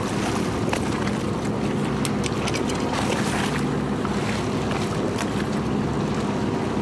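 Fishing boat's engine running steadily, with wind on the microphone and water washing at the hull, and a few short sharp knocks scattered through.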